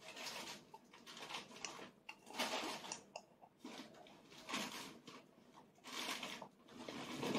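A toddler drinking miso soup from a cup, tipped up to the bottom: faint gulps and breaths, soft sounds coming irregularly about a second apart.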